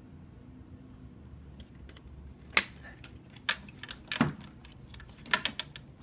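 Plastic keypad and front-cover parts of a Kronos 4500 time clock clicking and knocking as they are handled and fitted together: scattered sharp clicks and taps, the loudest about two and a half seconds in.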